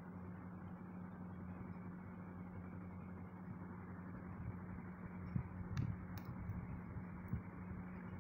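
Steady background hiss with a constant low hum, with a few faint knocks and two small clicks a little past halfway.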